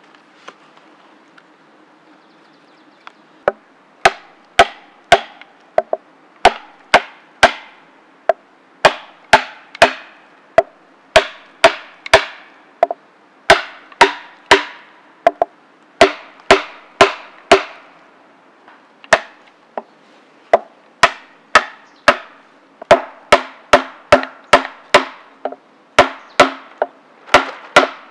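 Small axe striking wooden stakes: sharp, loud knocks about two a second, in long runs with a brief pause partway through.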